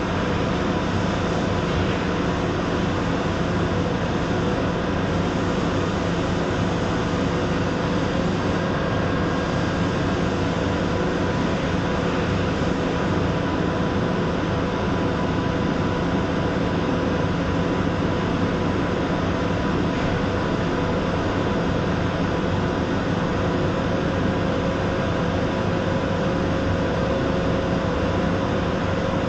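TIG welding: a steady hiss with a low hum from the DC arc and the welding machine, with no breaks or changes.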